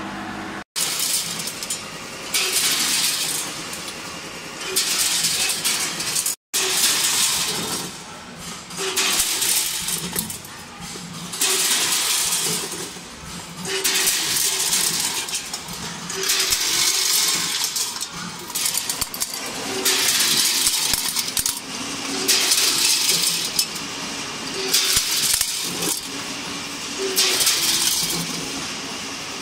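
Multihead weigher handling plastic round wire clips with steel nails, which clatter against its stainless-steel hoppers in bright rattling bursts about every two seconds over a steady machine hum.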